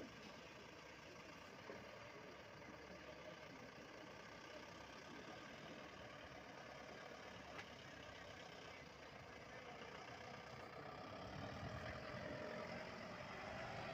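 Faint motor-vehicle engine running at idle, with more low engine sound in the last few seconds.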